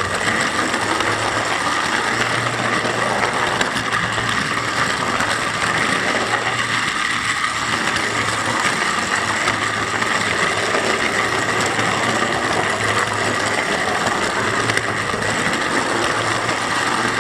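Model Flying Scotsman locomotive running round the track pulling a track-cleaning wagon: a steady whirr of the small electric motor and gears with the clatter of wheels on the rails, and a low hum that comes and goes.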